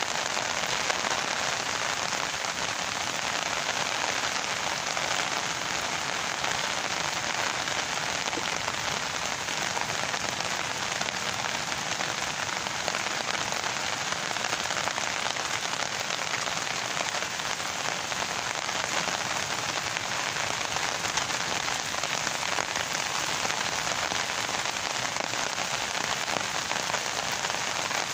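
Steady rain falling in an even, unbroken hiss.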